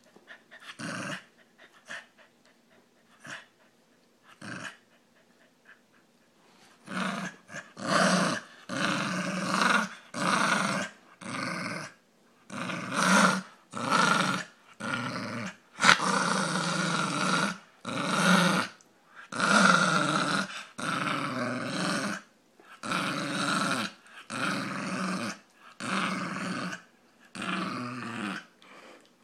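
Brussels griffon–pug mix dog making a string of growling grunts: a few short, faint ones at first, then from about seven seconds in a steady run of louder growls, each about a second long with short breaks between.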